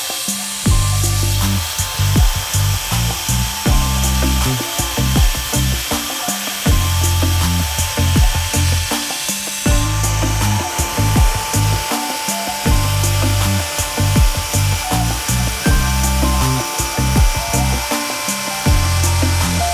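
CNC router spindle and end mill milling a pocket in an aluminium block: a steady machining whine with cutting hiss, under background music with a low bass line.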